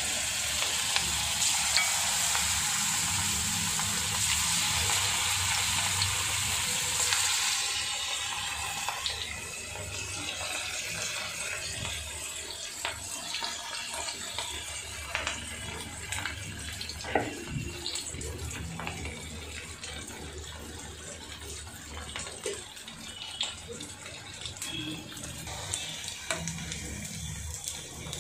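Batter-coated cauliflower deep-frying in hot oil in a steel kadai: a loud, bright sizzle for about the first seven seconds as pieces go in, then a quieter bubbling hiss with scattered crackles and a few clicks.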